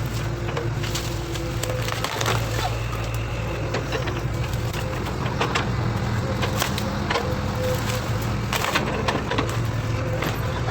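Heavy-equipment diesel engine running steadily at a low pitch, with repeated sharp cracks and knocks scattered over it.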